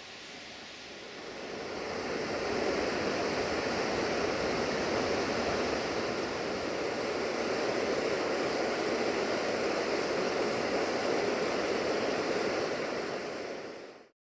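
Small waterfall splashing down a mossy rock face, a steady rush of falling water. It swells in about a second and a half in and fades out near the end.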